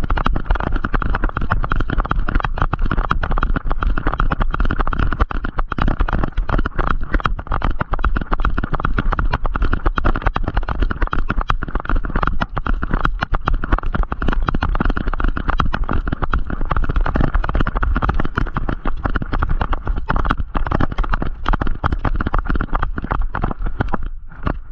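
A GoPro strapped to a running dog's back harness, knocking and rubbing against the harness with every stride over the pine-needle floor, with wind buffeting the microphone. It makes a continuous, rapid, jostling clatter.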